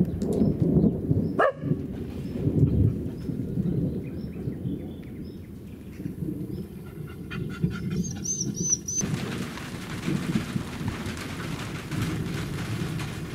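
Low rolling rumble of continuous thunder from a supercell, with small birds chirping over it and a short bird trill about eight seconds in. About nine seconds in it switches to a steady hiss of wind and rain.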